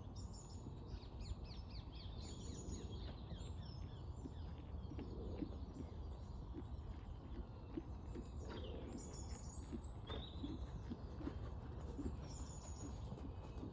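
Small birds chirping and singing over a steady outdoor hum, with the muffled, regular hoofbeats of a horse cantering on a sand arena becoming audible from about five seconds in.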